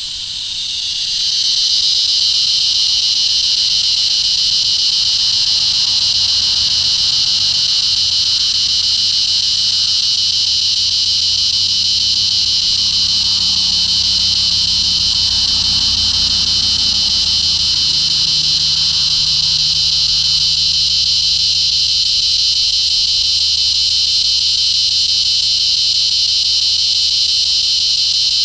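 Resonant cicada (Neotibicen resonans) calling in one long, unbroken high buzzing drone. It swells over the first couple of seconds and then holds steady.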